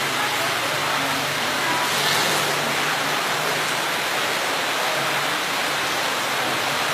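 Steady, even hiss of noise with a faint low hum underneath.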